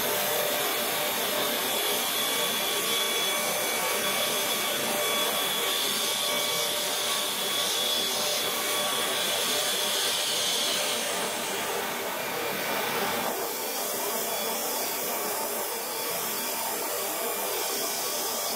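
Komo VR510 CNC router's 22 HP spindle running and routing a wooden panel: a steady rushing noise with a thin high whine. The sound changes and turns duller about two-thirds of the way through, as the cutter moves on to a light finish pass.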